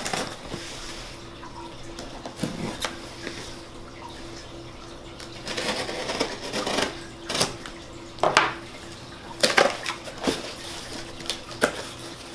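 Utility knife blade scraping and slicing through packing tape on a cardboard shipping box, with irregular clicks and knocks as the box is handled; near the end the cardboard flaps are pulled open.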